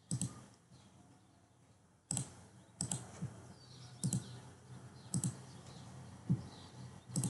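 Computer mouse clicking, about seven sharp separate clicks at irregular intervals, some as quick double clicks.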